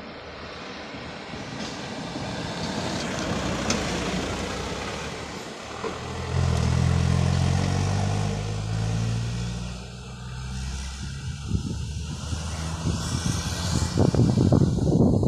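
Heavy road vehicles passing: traffic noise builds over the first few seconds, then a large diesel engine's low drone is loudest from about six to nine seconds in, and an uneven low rumble grows near the end.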